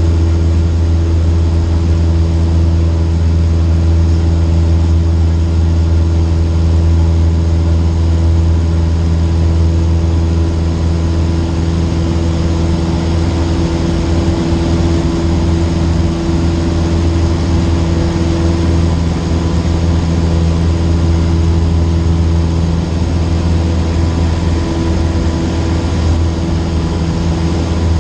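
Cessna 152's four-cylinder Lycoming piston engine and propeller running at a steady, unchanging speed, a loud continuous drone.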